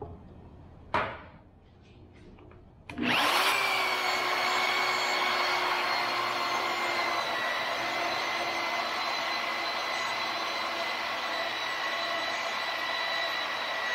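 A sharp clunk about a second in, then a magnetic drill's motor starts about three seconds in and runs with a steady whine while the bit is fed by hand into a steel plate. The pitch sags slightly as the bit takes the load.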